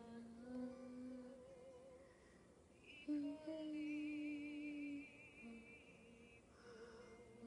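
A female voice singing softly in long held notes with a slow vibrato, the loudest note held for about two seconds in the middle.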